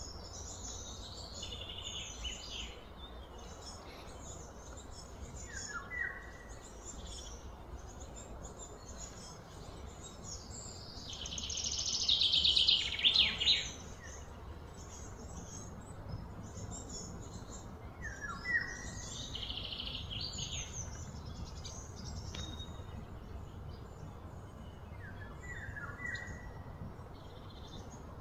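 Outdoor ambience of birds calling: a short downward-sliding call repeats every several seconds among scattered chirps, and a louder burst of rapid chirping comes about twelve seconds in, over a steady low rumble.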